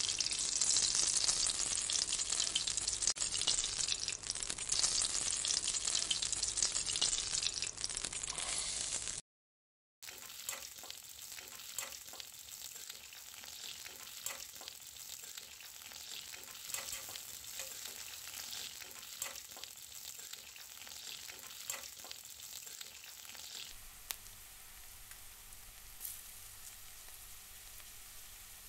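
Mustard seeds crackling and popping in hot oil in a stainless-steel kadai, loud and dense with sharp clicks, for about nine seconds. After a short gap, drumstick (moringa) pieces sizzle more quietly in the oil while a metal spoon stirs them, with scattered clicks of the spoon against the pan.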